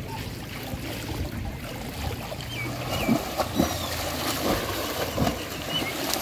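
Splashing of a swimmer doing butterfly stroke, arms and body striking the water in repeated strokes that start about three seconds in.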